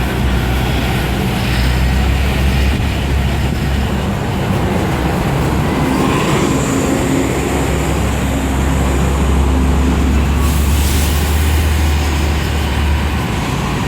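Transit bus engine running with a steady low drone, and a burst of hiss about ten seconds in. To the person filming, the engine doesn't sound right and sounds abused, in need of an overhaul.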